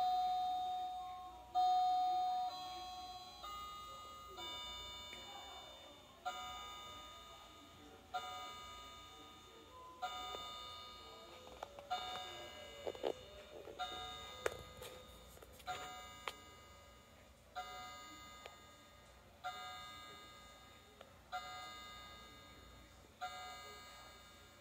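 Howard Miller Rowland wall clock striking the hour on its chime rods: single ringing strikes about two seconds apart, each fading before the next, counting twelve for noon.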